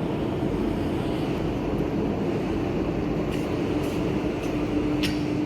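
Steady mechanical rumble of running machinery, with a steady hum that comes up about three seconds in and a few faint clicks.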